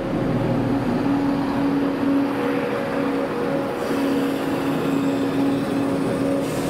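Southern electric multiple-unit train standing at the platform, its onboard equipment giving a steady hum. A higher hiss joins about four seconds in.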